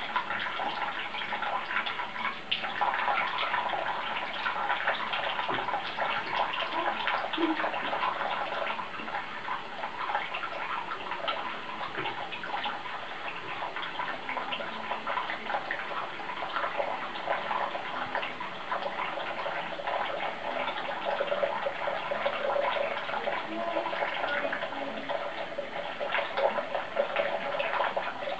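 Steady rush of running water, like a tap left running, with a fine crackle in it.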